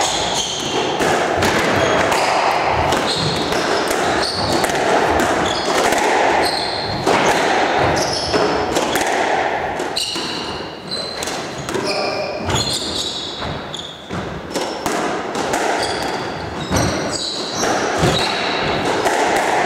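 Squash rally: the ball struck by rackets and smacking off the walls at an irregular pace, with shoes squeaking on the wooden court floor and echoing in the hall.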